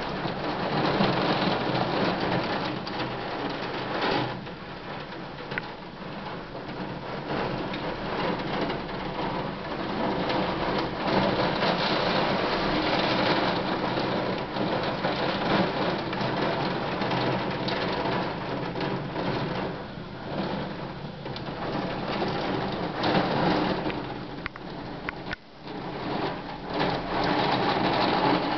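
Heavy thunderstorm rain pouring down, a dense steady rush that swells and eases, with thunder rumbling.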